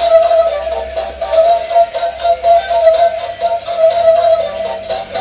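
Battery-powered dancing robot toy playing a song with singing through its small built-in speaker as it dances.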